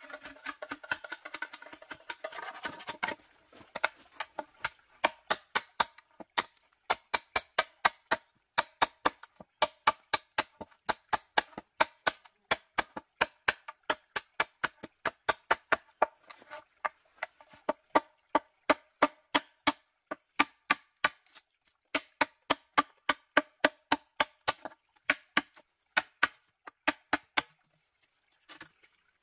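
A knife blade chopping into the side of a green bamboo culm to cut a hole. The strikes start about three seconds in and go at roughly three a second with a few short pauses, each one a hollow knock with a brief ringing tone.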